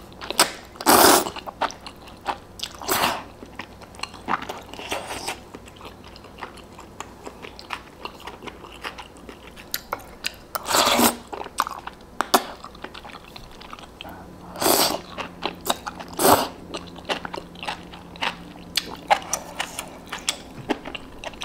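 Close-miked eating sounds: a person slurping spicy noodles and broth several times, with steady wet chewing in between.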